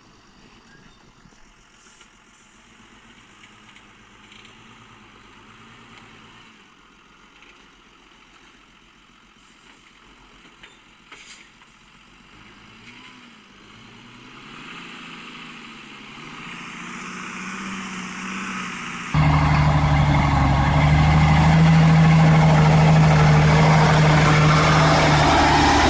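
Heavy diesel truck engine: faint and distant at first with its pitch rising and falling, growing louder, then suddenly loud and close about three-quarters of the way in, running steadily under load.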